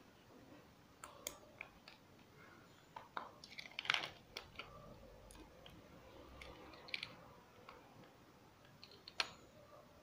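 Faint, scattered plastic clicks and taps from a DualShock 4 controller's shell being handled and fitted together while it is reassembled, then a small precision screwdriver set into its screw holes. There is a louder cluster of clicks about four seconds in and a single sharp click near the end.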